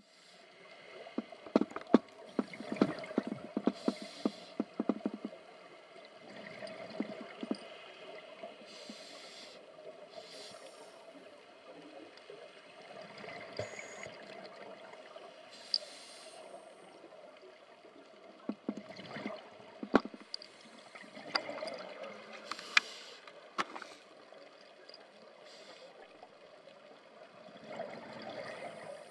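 Underwater recording of scuba divers breathing: exhaled air bubbles from their regulators gurgle and crackle in bursts every few seconds over a steady hum.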